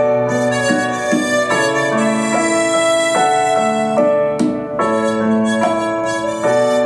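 Harmonica playing a slow melody of held notes into a microphone, with piano accompaniment underneath.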